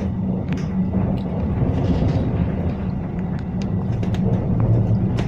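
Tram running along its rails, heard from inside the passenger cabin: a steady low hum and rumble with scattered small clicks and rattles.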